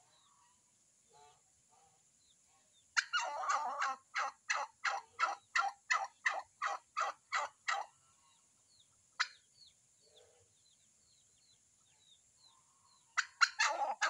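Domestic turkey hen calling in a long run of about fourteen short, evenly spaced calls, roughly three a second, then a brief pause and another quick burst of calls near the end.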